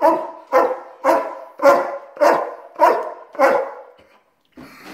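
German Shepherd dog barking, seven loud barks in a steady rhythm about two a second, then stopping for a moment near the end; the dog is protesting its owner leaving.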